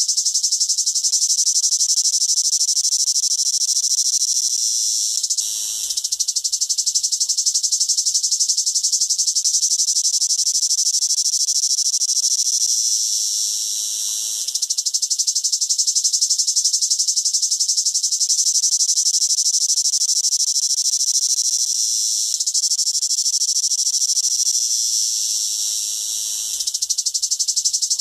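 A cicada singing: a loud, continuous high-pitched buzz that fades slightly and breaks off briefly three times, each time starting up again at once.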